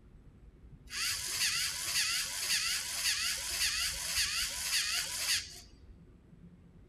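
A LEGO NXT servo motor and gear train running with a whine, driving the LEGO pneumatic pump in strokes about twice a second. It starts about a second in and cuts off suddenly after about four and a half seconds.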